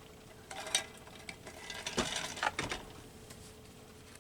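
A drink being taken at a table: a few light clicks and knocks from the cup or bottle being handled, the loudest about two seconds in and again half a second later, over a faint steady hum.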